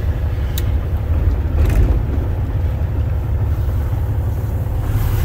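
Caterpillar C15 diesel of a Freightliner Columbia truck running under way, heard from inside the cab as a steady low rumble. Two brief ticks come about half a second and just under two seconds in.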